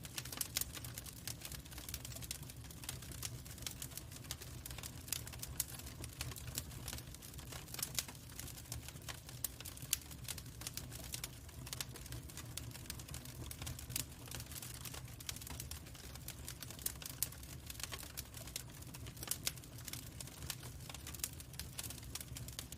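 Log fire crackling: irregular sharp pops and snaps of burning wood over a steady low rumble of the flames.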